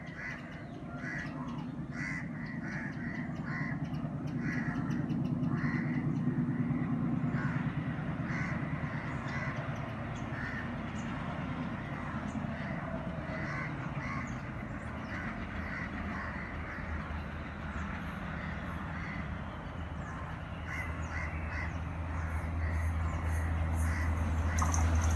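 Crows cawing over and over in short calls. From about twenty seconds in, the low engine drone of an approaching WDM-3D diesel locomotive grows steadily louder.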